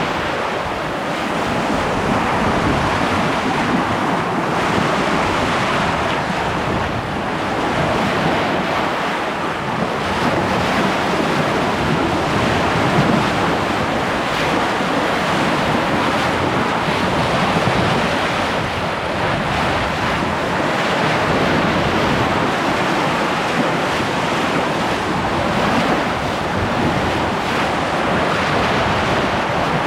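Wind on the microphone and lake water rushing along the hull of a sailboat under sail: a steady rushing noise that swells and eases gently.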